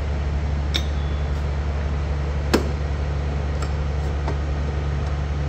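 A machine running steadily with a low, even hum, and a few sharp clicks over it, the loudest about two and a half seconds in.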